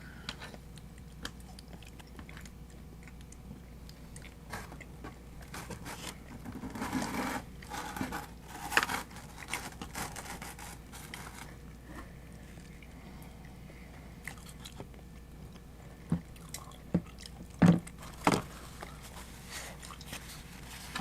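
Close-miked eating: pizza being bitten and chewed, with crunching of crust and scattered mouth smacks. The sounds are busiest about seven to nine seconds in, with a few sharper clicks near the end.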